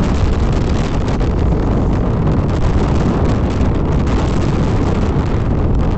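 A vehicle travelling along a rough dirt road, with wind rushing over the microphone in a loud, steady rumble.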